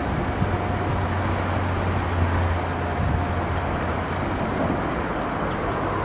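CREE MH 108 brushless electric outboard driving a round BBQ donut boat: a steady low hum under an even rushing outdoor noise.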